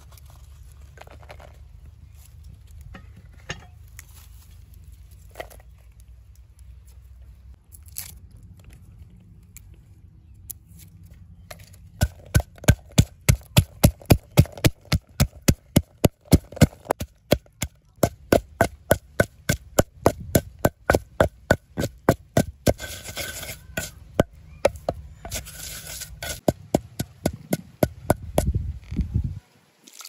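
Wooden pestle pounding red chilies and garlic in a mortar. Starting about twelve seconds in, it strikes in a rapid, even beat of about three to four knocks a second, and near the end the strokes turn duller and mashier as the chilies break down into a paste. Before the pounding there is only a low steady rumble and a few soft knocks as the ingredients go into the mortar.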